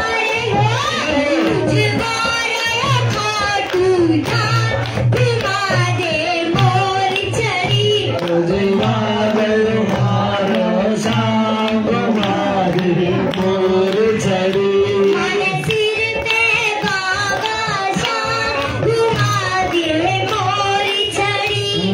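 A girl singing a Hindi devotional Shyam bhajan into a microphone, amplified, over steady instrumental accompaniment.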